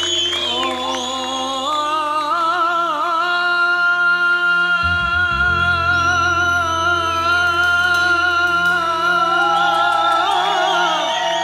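A male singer performing an Arabic song live into a handheld microphone: a wavering ornamented run that rises into one long held note with slight vibrato, ending in a falling run near the end, over sustained keyboard accompaniment.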